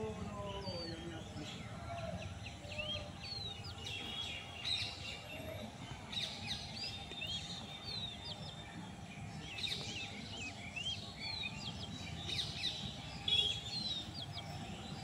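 A chorus of small birds chirping and twittering in the trees: many short, quick calls sweeping up and down, overlapping one another, over a low steady hum of outdoor background noise.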